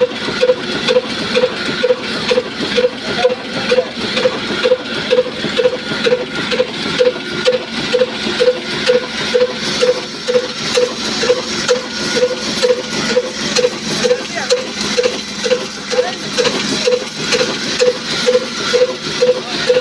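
Old Ruston Hornsby single-cylinder diesel oil engine running steadily, with an even, slow beat of about two firing strokes a second.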